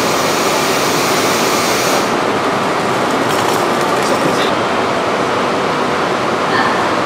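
JR 185 series electric train standing at a station platform, its equipment giving a steady running noise. A high hiss on top stops abruptly about two seconds in.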